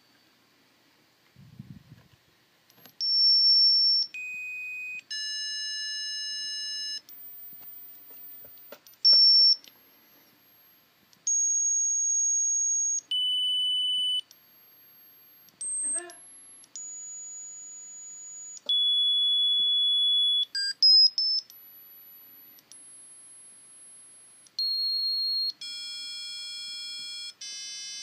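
Piezo buzzer driven by PWM from a Particle Photon, sounding a string of steady tones at random pitches, each held for half a second to two seconds before jumping to another. Some are thin, piercing high whistles, others buzzier with overtones.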